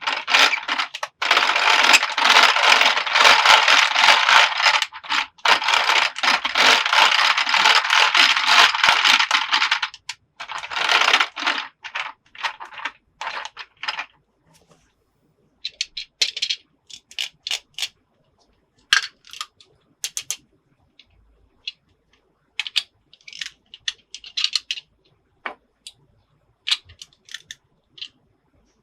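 Small hard plastic toy pieces clattering and rattling in a dense run for about ten seconds, then separate clicks and taps as pieces are picked up and set down.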